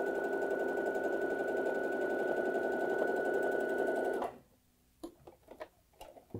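Domestic sewing machine running steadily, stitching a straight seam with a constant high whine over the rapid needle beat. It stops suddenly about four seconds in, followed by a few faint clicks and fabric handling sounds.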